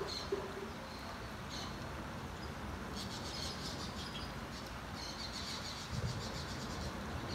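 Birds chirping at dawn, with quick runs of high, repeated chirps about three seconds in and again near five seconds, over a steady low background rumble.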